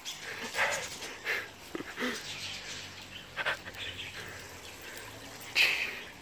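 A small dog running about on a grass lawn: a handful of short, scattered noises from the dog and its movement, the loudest near the end.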